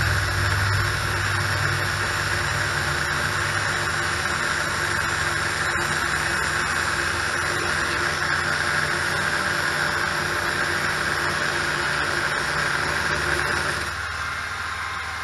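A grinder with a cut-off disc running steadily under load, grinding through a broken carriage bolt. The low hum drops away and the sound gets a little quieter near the end.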